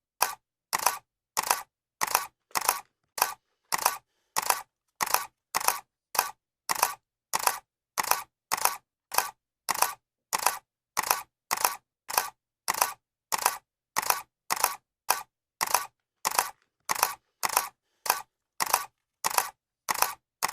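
Accent camera's shutter clicking over and over at an even pace of about two clicks a second, each click a quick double snap.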